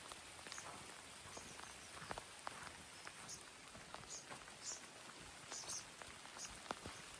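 Light rain falling steadily, with scattered drops tapping at irregular moments.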